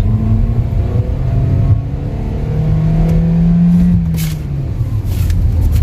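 Toyota Innova Hycross's 2.0-litre naturally aspirated four-cylinder petrol engine pulling hard under acceleration, heard from inside the cabin over a low road rumble. Its drone climbs in pitch over the first three seconds, holds, then eases off about four and a half seconds in.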